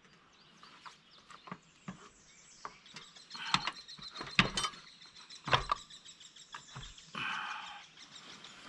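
Scattered metal clicks and knocks, loudest in the middle, as a log splitter's hydraulic pump is handled and fitted onto its mounting bolts against the engine.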